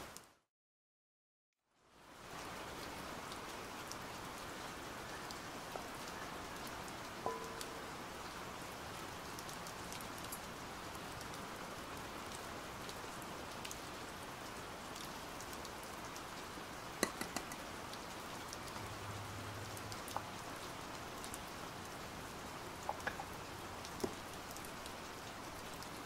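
Steady rain after about two seconds of silence, with a few faint clicks and taps scattered through it.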